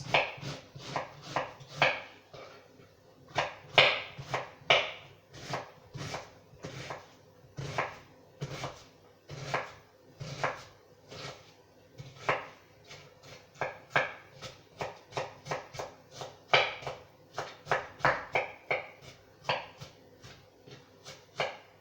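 A knife slicing an onion thinly on a cutting board: a run of sharp chopping strokes, about two a second, some louder than others.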